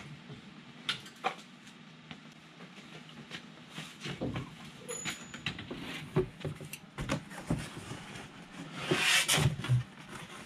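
Scattered knocks and clicks of a gas furnace cabinet being handled and set into place against a wall, over a low steady hum, with a louder rustling scrape near the end.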